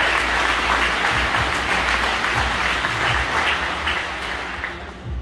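Audience applauding, dense and steady at first, then thinning out and dying away near the end.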